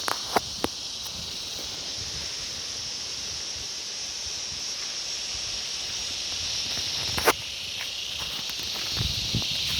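Steady high-pitched drone of an insect chorus in the Australian bush, with a few sharp clicks near the start and a louder one about seven seconds in.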